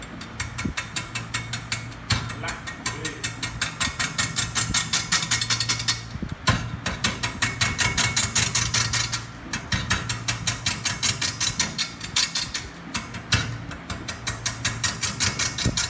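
Wood lathe turning a large wooden blank, the cutting tool striking the uneven surface once per revolution in a rapid, even knocking of about six or seven knocks a second over a low motor hum. The knocking breaks off briefly twice as the tool is eased off.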